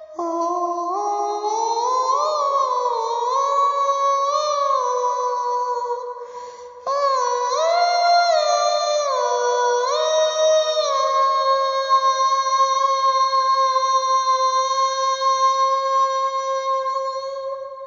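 Wordless high female voice singing a melody, sliding smoothly from note to note. It runs in two phrases with a short break, and the second ends on a long held note.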